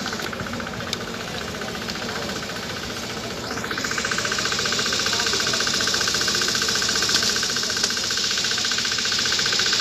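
A small engine running steadily with a fast, even pulse, under a hiss that grows louder about three and a half seconds in.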